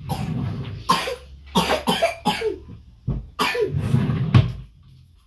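A person coughing several times in a row, in short bursts spread through the whole stretch.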